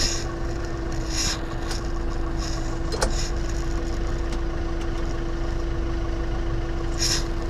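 Kubota tractor engine running steadily with a constant droning tone, with a few light rattles and a sharp click about three seconds in.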